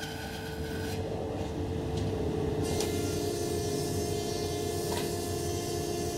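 Woodworking power-tool noise: a bandsaw running briefly, then a benchtop thickness planer with a steady machine tone, its planing noise setting in about three seconds in as a thin board feeds through.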